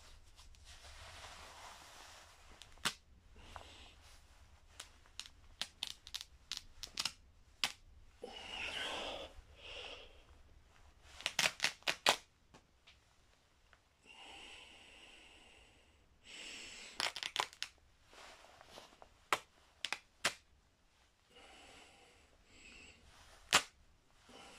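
A tight white lab coat strained against the wearer's body and gloved hands: cloth rustling, stretches of tearing, and many sharp snaps of stitches and fabric giving way, in irregular clusters.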